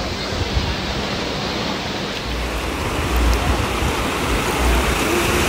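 Ocean surf breaking and washing over the shoreline in a steady hiss, with a few low rumbles in the second half.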